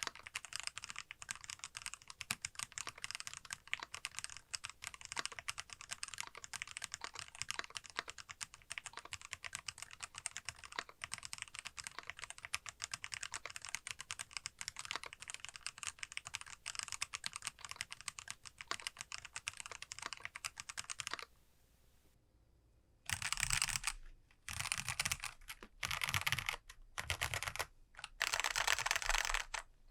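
Lubed Kailh Box Black linear switches on a modded aluminium Monstargear ALU XO V3 keyboard with Poron plate and case foam, typed on steadily. About two-thirds of the way in the typing stops for a couple of seconds, then returns as five short bursts of very fast key presses.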